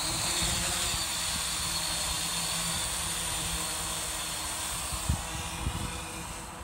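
Yuneec Typhoon H 480 hexacopter's six motors and propellers buzzing as it lifts off and climbs away, the sound slowly fading toward the end.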